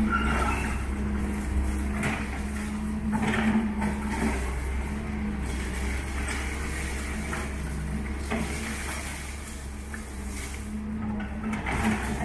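Doosan DX140W wheeled excavator's diesel engine running steadily under load, with irregular crunching and clattering of concrete rubble and debris as the bucket digs into the demolition pile several times.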